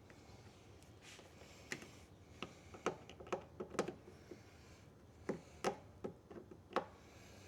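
Irregular light clicks and knocks of hand work on a lawn mower, a dozen or so scattered through a few seconds with some faint scraping.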